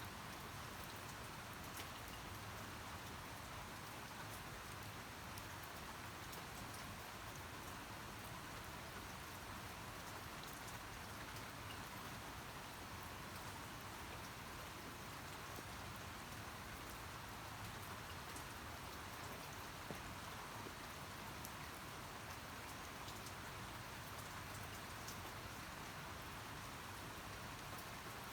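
Steady rainfall, a continuous patter of raindrops with scattered individual drop ticks.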